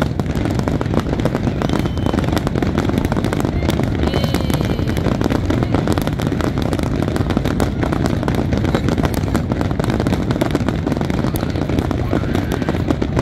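Aerial fireworks display: a rapid, continuous barrage of shell bursts and crackling bangs overlapping one another.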